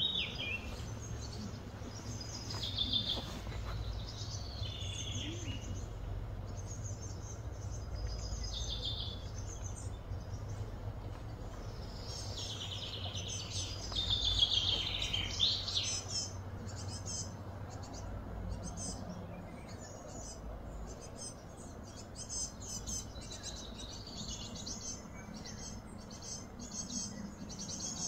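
Birds chirping and trilling, over a low steady rumble.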